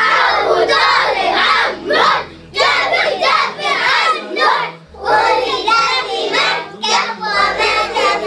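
A group of young children singing together in chorus, with short breaks between phrases about two and a half and four and a half seconds in.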